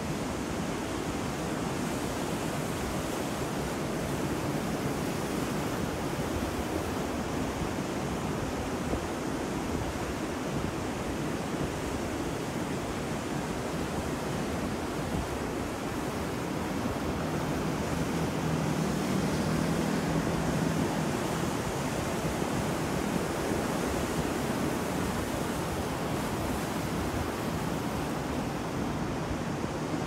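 Rough ocean surf breaking and washing onto a beach in a steady rush of waves, swelling a little louder about two-thirds of the way through.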